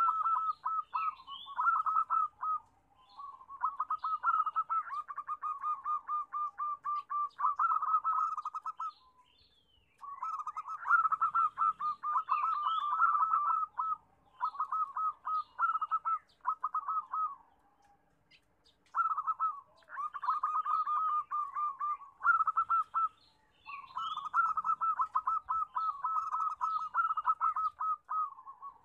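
Zebra doves (perkutut) cooing in rapid, rattling trilled phrases a few seconds long, repeated again and again with short pauses between them.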